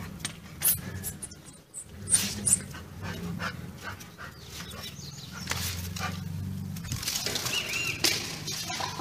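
A dog at play: scuffling and sharp knocks, with a low, wavering dog vocal sound underneath.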